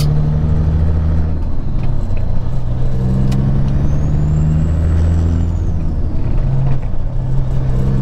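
Peterbilt 379 semi truck's diesel engine running under way, heard from inside the cab, its low drone shifting in pitch several times, over steady road noise. A faint high whine rises and falls around the middle.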